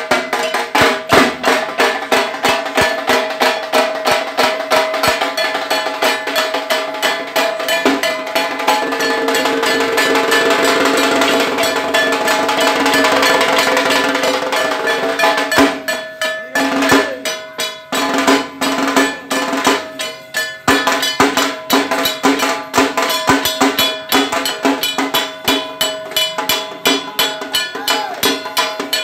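Dhak drums beaten with sticks in a fast, driving rhythm. A dense roll builds in the middle, breaks off about sixteen seconds in with short pauses, and then sharp separate strokes pick up again.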